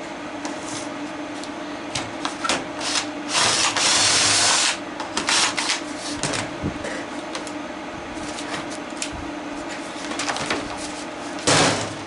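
Clicks, knocks and rattles of plastic parts and tools being handled while a plastic toy is taken apart, with a longer scraping rasp about three and a half seconds in and a short loud one near the end. A steady low hum runs underneath.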